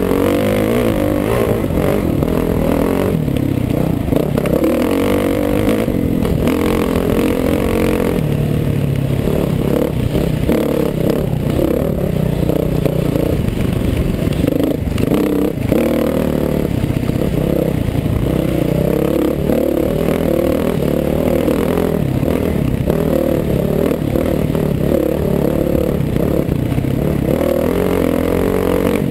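Four-stroke dirt bike engine running hard under load, its pitch wavering up and down with the throttle, with wind noise on the helmet-mounted microphone and rattling from the bike over rough ground.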